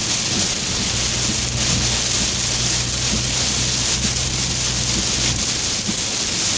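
Heavy rain pounding on a car's roof and windshield, heard from inside the cabin as a dense, steady hiss, with the car's low engine and road drone underneath that drops off near the end.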